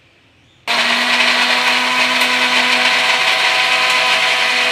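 Electric mixer-grinder (mixie) running at full speed, grinding coconut and raw mango pieces with chillies into a chutney paste in its lidded jar. It starts suddenly about a second in, runs loud and steady, and cuts off sharply near the end.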